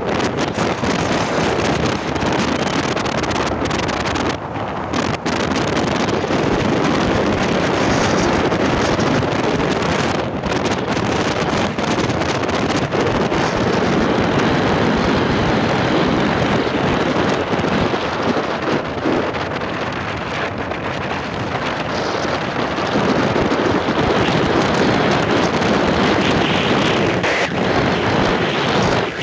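Steady wind buffeting the microphone of a moving motorcycle, with the motorcycle's running and road noise underneath.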